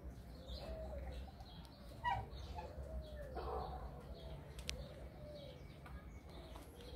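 Aviary birds calling: a series of low, arching calls repeated every second or so, with a few faint higher chirps.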